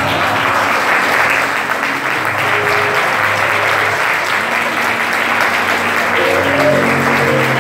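A church congregation applauding steadily, with instrumental music holding sustained low notes underneath.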